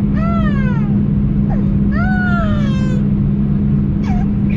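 Two drawn-out, meow-like cries, each rising then falling in pitch, with a short falling call near the end, over the steady low drone of an airliner cabin.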